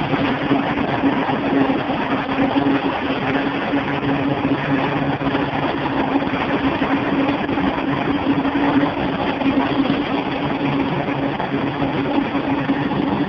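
Grumman C-2 Greyhound's twin turboprop engines running as it taxis: a steady drone with a held tone, joined by a lower tone about four seconds in.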